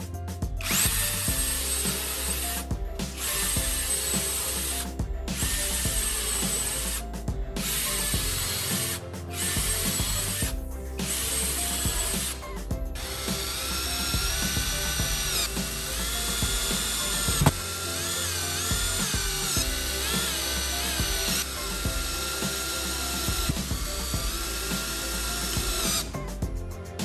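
An electric power tool running in a series of short runs of a couple of seconds each, with brief pauses between, then running without a break for about thirteen seconds while its whine shifts up and down in pitch. Background music plays underneath.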